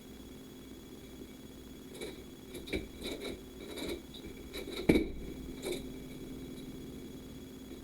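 A dozen or so short clicks and knocks, unevenly spaced, with a sharper knock about five seconds in, over a steady electrical hum.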